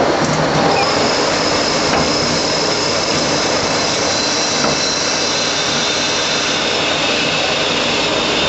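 Traub A25 automatic lathe and its loading automation running: a steady machine noise with a faint high whine over it.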